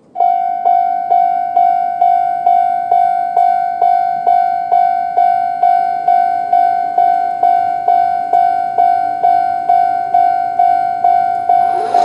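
Japanese railway level-crossing alarm, the older standard type of electronic crossing bell, starting suddenly and ringing a single pitched ding about twice a second without pause. It is the warning that a train is approaching and the barriers are about to come down.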